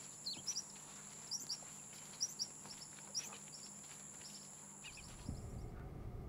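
Birds chirping in woodland: short, sharp calls repeated many times over a faint, steady high whine. About five seconds in, the woodland sound gives way to a low, steady rumble.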